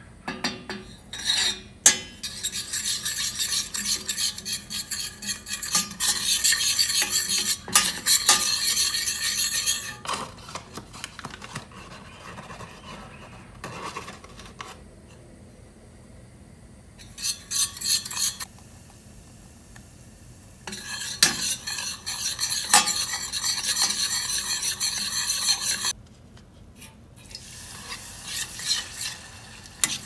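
Wooden spoon stirring and scraping a thick mixture in a stainless steel saucepan, in spells of quick strokes with pauses between them, and a few sharp clinks of a metal spoon against the pan.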